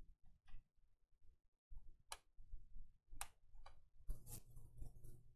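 A few faint, sharp plastic clicks, about two, three and three and a half seconds in, then a brief rustle near the end, as the screws and plastic access cover on the underside of an HP laptop are worked loose and the cover is lifted off.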